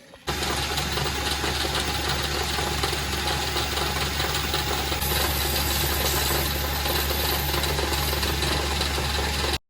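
A small electric power tool motor running steadily, with a low hum under a steady rushing noise. It cuts off abruptly near the end.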